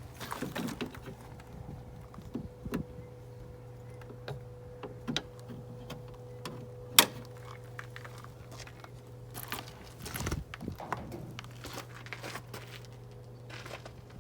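A 2013 GMC Sierra's broken plastic door handle being wiggled and unclipped out of the door: scattered clicks, rattles and knocks of plastic and metal, with one sharp click about halfway through, over a steady low hum.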